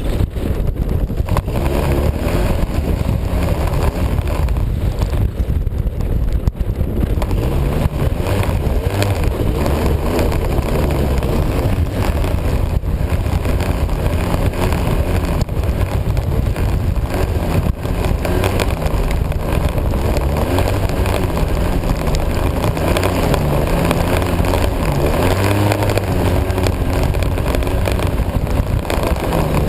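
Vehicle engine running steadily while driving, with its pitch wavering a little under load, mixed with rushing wind and road noise.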